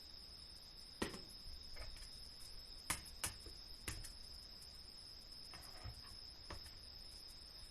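A faint, steady high-pitched tone like an insect's trill, with a handful of short sharp clicks or knocks, the loudest about three seconds in.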